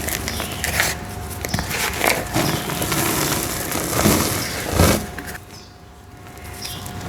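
Red brick dirt shapes being crumbled, with dry crackling and crunching and a few louder crunches, dying down to a quieter stretch about five seconds in.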